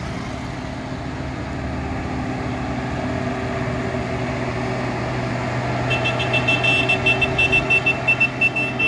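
A vehicle engine running steadily with a low hum. About two-thirds of the way through, a rapid series of high electronic beeps starts and keeps going.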